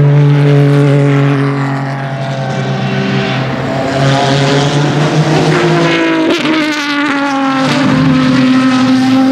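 Aston Martin V12 Vantage GT3's 6-litre V12 on an open exhaust, running loud at high revs on track. The pitch holds steady, dips about halfway through, then climbs in rising sweeps before levelling off.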